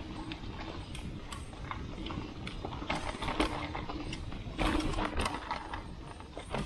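Mountain bike riding down a loose dirt trail, heard from the bike: a steady rumble of tyres on dirt and wind on the microphone, with the chain and frame rattling in irregular sharp clicks and knocks over bumps.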